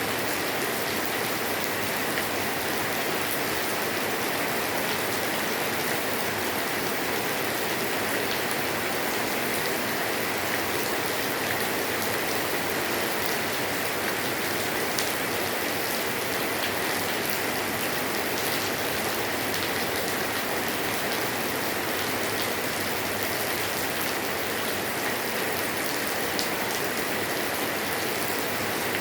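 Light rain falling steadily on a roof: an even hiss with scattered sharper drop ticks.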